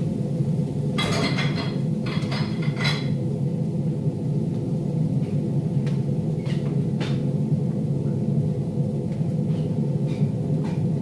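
Steady low hum of a kitchen range-hood exhaust fan running. Over it, a few short bursts of pot-and-utensil clatter come about a second in, with a few light ticks later.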